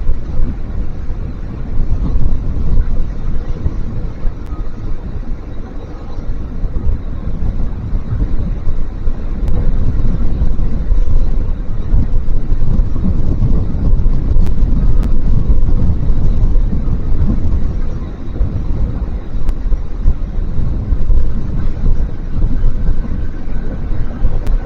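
Wind buffeting an outdoor microphone: a loud, gusty low rumble that swells and eases.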